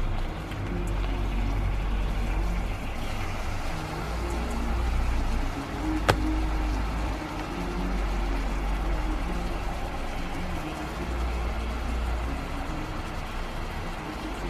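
Steady low rumble of background noise, with one sharp click about six seconds in.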